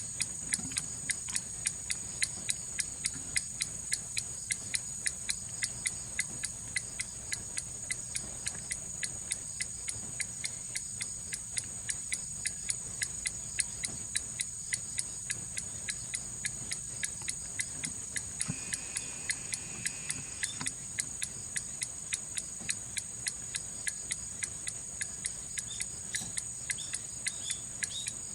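Swing-style pendulum clock ticking steadily, about two to three ticks a second; it is being adjusted so the tick-tock is evenly in beat and the clock no longer stops.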